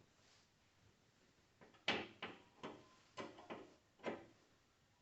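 About six sharp clacks and knocks, starting about two seconds in, as hydraulic hoses and fittings are handled and connected on the tractor.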